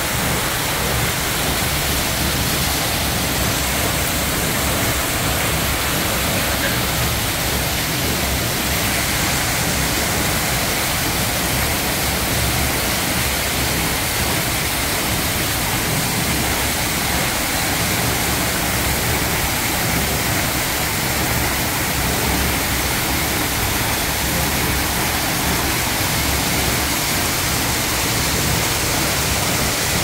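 Artificial waterfall, water pouring steadily over a rock ledge into a pool below.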